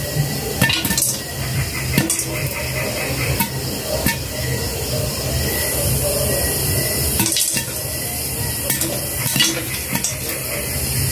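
Popcorn kernels popping inside a glass-lidded wok: sharp pops come irregularly, roughly one a second, over a steady hiss from the hot pan.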